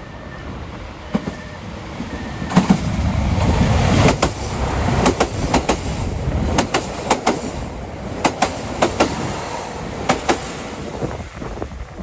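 KiHa 183 series diesel multiple unit arriving and rolling past close by, with a low rumble from the train under load. Its wheels clack over the rail joints, often in pairs, from about two seconds in. The clacking and rumble fade near the end as the train slows into the station.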